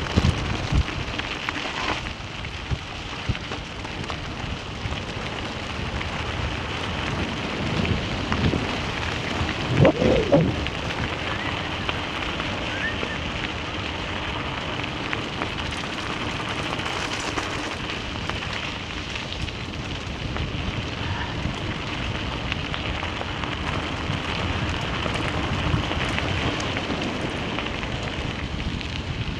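Bicycle tyres crunching and crackling over a loose gravel road, with the bike and camera rattling and wind on the microphone. A short louder bump about ten seconds in.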